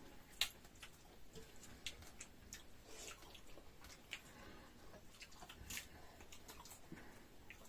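Faint eating sounds: scattered small clicks and smacks of chewing and handling soft dhido with nettle curry.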